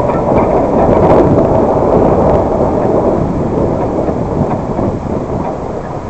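Car driving over a rough dirt road, heard from inside: a steady rumble and rattle of tyres and body, easing a little in the second half.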